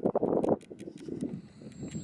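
Gusty wind buffeting the microphone: an uneven low rumble, strongest in a gust over the first half second, then easing.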